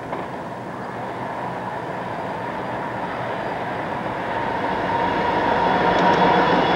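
Several Conrail diesel locomotives leading a freight train approach and pass at speed, the engine and wheel noise growing steadily louder as they close in. A steady whine comes up over the last couple of seconds.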